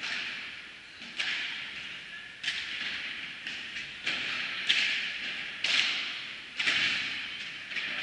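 Padel rally: the ball struck back and forth by padel rackets and bouncing on the court and glass walls, in sharp knocks about once a second, each echoing in the large hall.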